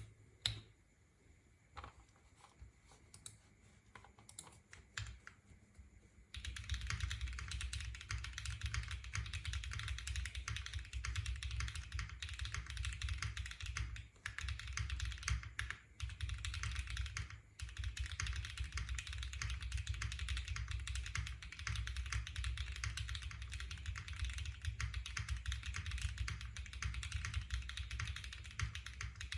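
Neo65 gasket-mount mechanical keyboard with lubed Lily tactile switches being typed on. A few separate keystrokes come first, then about six seconds in it turns to fast, continuous typing with a few brief pauses.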